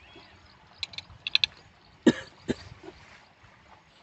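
Spanner clicking on the steel coupling bolts of a borewell submersible pump as they are tightened: a few quick sharp metal clicks, then two louder short sounds about half a second apart.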